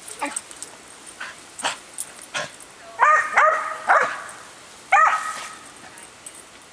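A dog barking excitedly while chasing water spray from a garden hose: three loud, high barks in quick succession about halfway through and one more a second later, with short sharp sounds before them.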